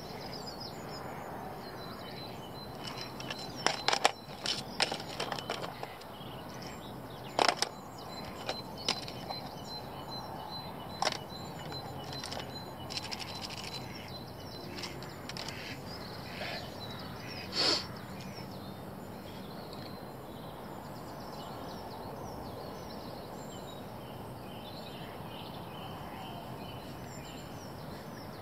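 Steady outdoor background hiss with scattered small clicks and rustles of fishing tackle being handled while a carp rig is set up. The clicks are bunched in the first half and stop after a sharper click about eighteen seconds in.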